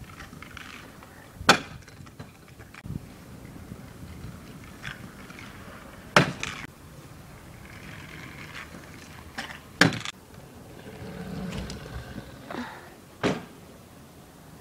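Stunt scooter riding on concrete: four sharp clacks a few seconds apart as the deck and wheels land, with lighter knocks and wheels rolling over the concrete between them.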